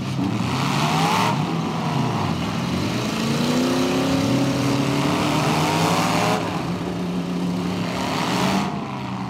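Several demolition-derby pickup trucks' engines revving hard at once, their pitches rising and falling over one another as they accelerate and back up.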